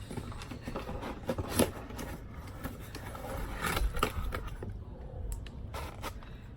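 Takeout food containers being handled and set down: scattered scrapes and light knocks of cardboard and plastic.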